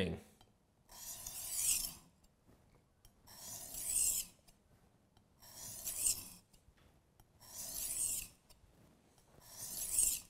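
Chef's knife blade pushed along a Work Sharp whetstone, its coarser side: five long gritty scraping strokes, about one every two seconds, raising a burr on the edge.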